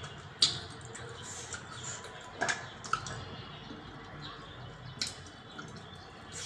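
Scattered small clicks and taps of eating by hand: fingers working through curry gravy on a stainless steel plate, then wet mouth and lip-smacking sounds as the fingers are sucked near the end. The sharpest click comes about half a second in.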